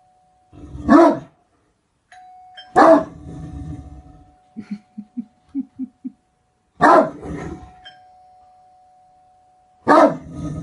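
Great Dane barking: four deep, loud single barks a few seconds apart. A steady ringing tone holds between the barks, and about halfway through comes a quick run of about seven short low sounds.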